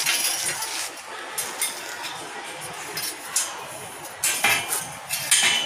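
Metal scaffold parts clinking and knocking against each other as the scaffold is taken apart, a few sharp clinks, louder near the end.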